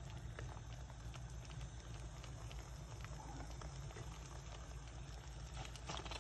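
Egg mixture for an omelette sizzling and crackling softly in a frying pan, with a brief louder burst near the end.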